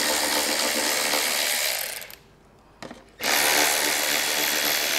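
Cordless electric ratchet with a 7 mm socket spinning out factory screws, in two steady whirring runs. The first stops about two seconds in, and the second starts again just after three seconds, with a small click in the pause.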